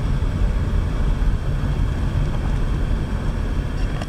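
Steady low rumble of a car driving on a gravel road, heard from inside the car.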